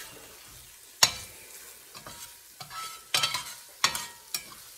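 Metal spatula scraping and knocking against an enamelled pan while stirring a tuna mixture, with about four sharp clinks that ring briefly, over faint sizzling in the pan.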